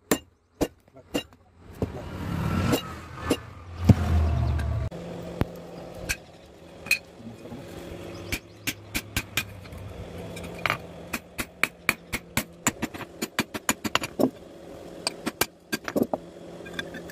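Hand-hammer blows on a hot steel axe head and on a drift at a blacksmith's anvil, forging an axe from a leaf spring. The strikes come irregularly, sometimes in quick runs. From about two seconds in, a steady low hum runs underneath.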